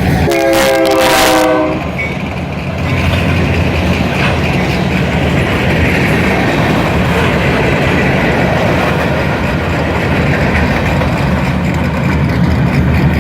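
Diesel locomotive horn sounding a chord that ends about one and a half seconds in, then a freight train pulled by Norfolk Southern EMD SD40-2 locomotives passing at the crossing, with a steady low rumble of engines and wheels on the rails.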